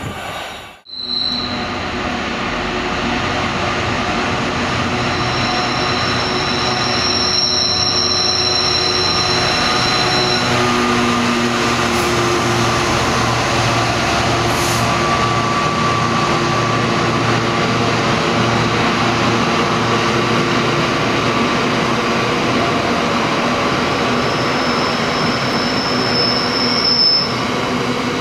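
Train running on the rails, a steady loud rumble and rush. A high-pitched wheel squeal sets in about five seconds in and lasts several seconds, and comes again near the end.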